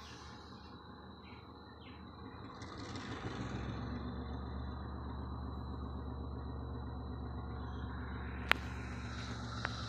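Diesel locomotive engine running, a steady low rumble that comes up about three seconds in and holds. A single sharp click about two-thirds of the way through is the loudest sound.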